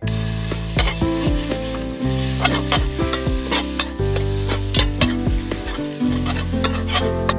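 Food sizzling as it fries in a hot aluminium pot, stirred with a metal spatula that scrapes and clicks against the pot again and again. Steady low background music runs underneath.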